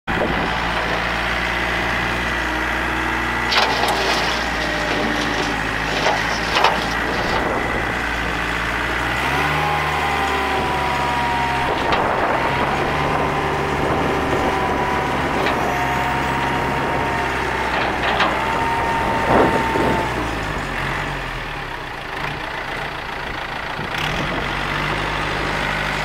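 John Deere 970 compact tractor's three-cylinder diesel engine running steadily, with a high whine over it that shifts in pitch about ten seconds in and stops around twenty seconds. A few sharp knocks come through, at about three and a half, six and a half, and nineteen and a half seconds.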